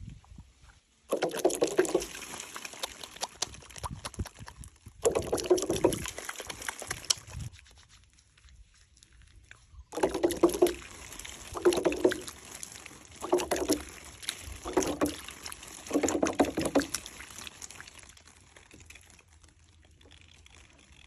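Water pouring and splashing in about seven separate bursts with short pauses between them.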